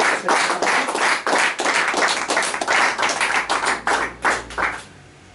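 Audience applauding, dense clapping that thins out and stops near the end.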